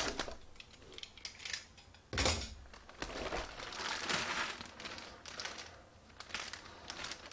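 Thin plastic packaging bag crinkling and rustling as it is handled and pulled off a boxed network appliance, with a single thump about two seconds in.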